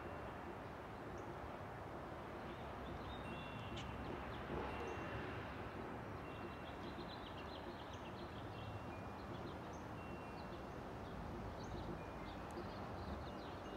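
Faint, steady distant rumble of a Boeing 737-900 airliner's CFM56 turbofans cruising high overhead. Scattered short, thin high tones ring out now and then over it.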